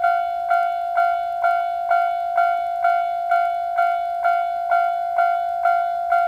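Japanese railway level-crossing alarm: an electronic crossing bell ringing 'kan-kan' at a steady rate of about two strikes a second, each strike a single ringing tone. It is the warning that a train is approaching.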